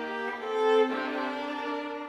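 Solo viola, bowed, playing slow held notes; one note swells louder before the pitch changes about a second in.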